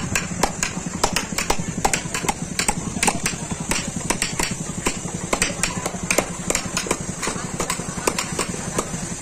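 Hammer tapping a wood-carving chisel in quick, uneven light strokes, about four taps a second.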